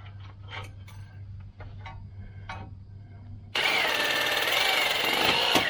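Handheld power cutting tool run for about two seconds against metal, starting abruptly past the middle and cutting off just before the end: a harsh noise with a wavering high whine, cutting off a stuck front-suspension part. Before it come light metallic clinks and rattles.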